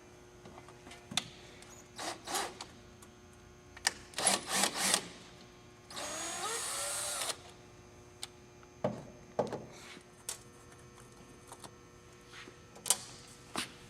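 Cordless screw gun backing out a kick-plate screw, running once for about a second and a half with a rising whine. Scattered clicks and knocks of the screws and metal plate being handled come before and after.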